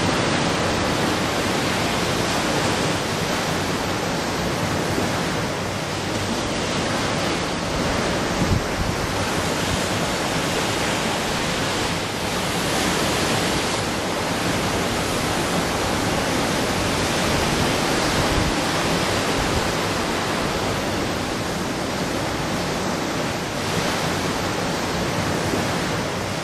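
Steady rushing noise of sea wind and ocean surf, swelling and easing slowly.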